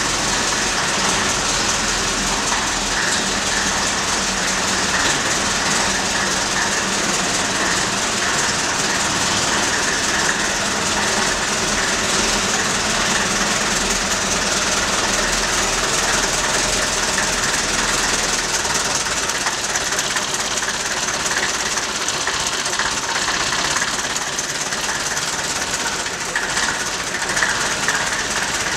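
IFA S4000 truck's four-cylinder diesel engine running steadily just after a cold start, smoking, as the truck moves slowly forward.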